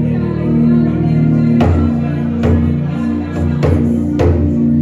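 Worship music: held chords with a few drum hits spread through it.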